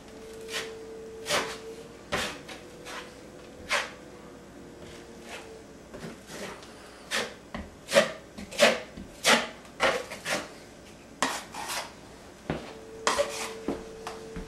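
Metal drywall knife scraping all-purpose joint compound out of its can and knocking against the rim, with irregular scrapes and clicks that are thickest in the middle. A faint steady tone sounds at the start and again near the end.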